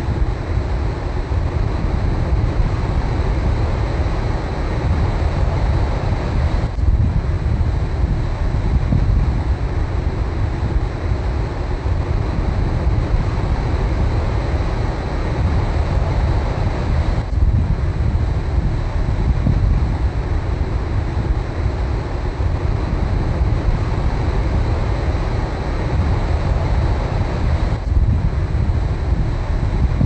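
Ocean surf breaking on a beach, a steady rush of foaming waves with heavy wind rumble on the microphone.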